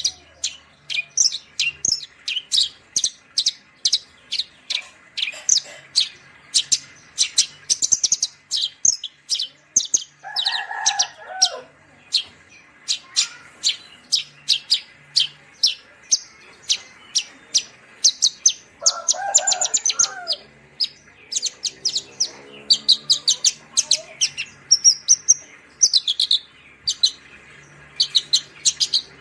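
Branjangan (Horsfield's bush lark) singing: a fast, continuous run of sharp, high chirps, several a second. Two lower, fuller calls of about a second each break in, near the middle and about two-thirds of the way through.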